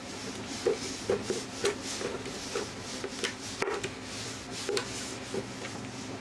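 Kitchen handling sounds: irregular soft knocks and rubbing, about one or two a second, over a steady hiss.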